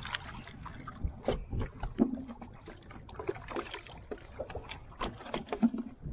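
A hooked fish thrashing and splashing at the water's surface as it is hauled up on a hand line beside the boat, a run of sharp, irregular splashes and knocks, the loudest about two seconds in and again shortly before the end.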